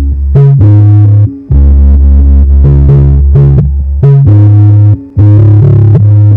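Bass-heavy electronic music played loud through a 12-inch ADS 1286 double-voice-coil subwoofer in an MDF box, as a sound test. Deep bass notes change every half second or so, with short breaks about a second and a half in and again about five seconds in.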